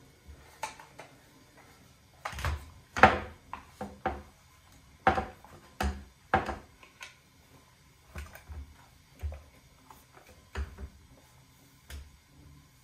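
Irregular clacks, knocks and scrapes of a Benelli M4 shotgun's barrel and polymer handguards being slid back into the receiver during assembly, the loudest knock about three seconds in.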